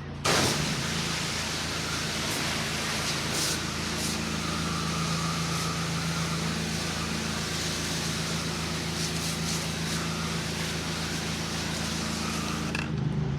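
A pressure washer's spray gun is triggered: a loud, even hiss of high-pressure water spraying starts just after the beginning and cuts off near the end. The washer's engine runs steadily underneath throughout.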